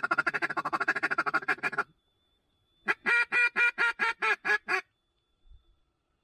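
Mallard duck call blown by a hunter to draw in circling ducks: a fast, rattling feed-call chatter for about two seconds, then, after a short pause, a string of about eight loud quacks.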